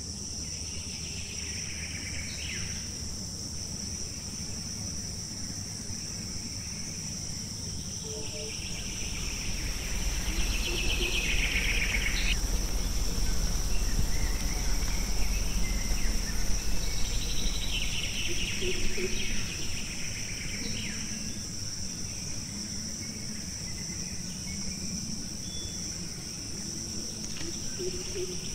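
Steady high-pitched drone of a forest insect chorus, with a few louder chirping bursts. A low rumble swells for several seconds in the middle.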